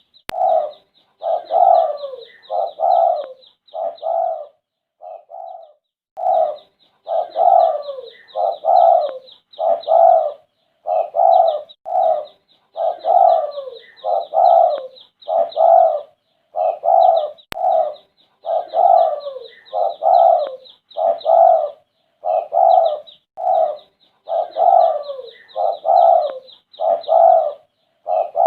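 Spotted dove (derkuku) cooing over and over, one phrase about every second, with a short pause about five seconds in. Fainter high chirping of small birds runs underneath.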